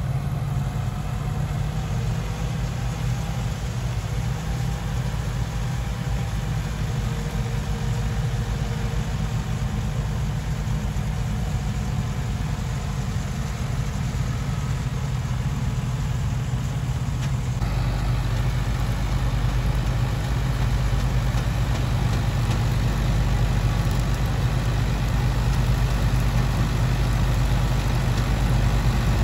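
Sonalika Worldtrac 75 tractor engine running steadily under load, driving a straw reaper through stubble. It makes a continuous low drone that grows fuller and louder about two-thirds of the way through as the rig comes closer.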